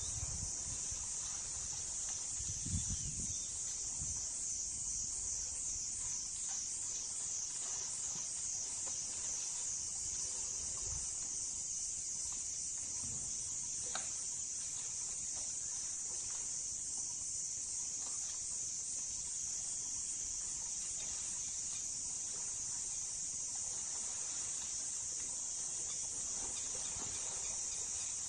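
Steady, high-pitched chorus of insects in the forest, with a slight pulsing to it. A few low rumbles come in the first few seconds.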